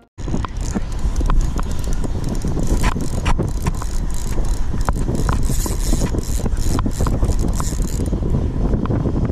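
Penn Battle II 3000 spinning reel being worked against a hooked fish, its mechanism clicking irregularly, over a steady low wind rumble on the microphone.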